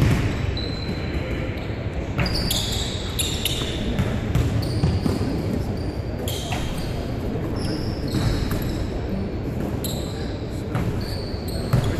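Basketballs bouncing on a hardwood gym floor, with repeated sharp knocks. Between them come short high squeaks of sneakers on the court.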